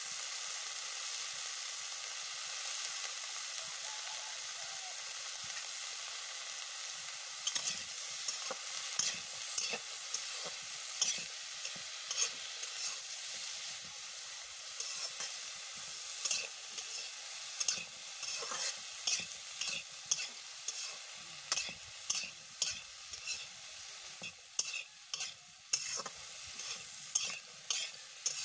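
Chopped brinjal and potato frying in oil in a metal karai, a steady sizzle. From about a quarter of the way in, a spatula stirs the pieces and scrapes against the pan in repeated sharp clicks, more often near the end.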